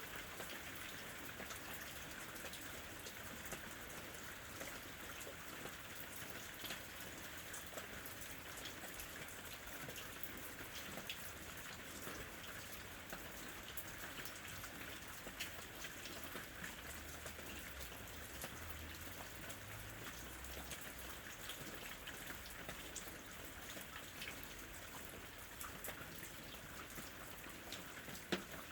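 Steady ambient rain falling on a surface, with many small drops pattering and ticking throughout.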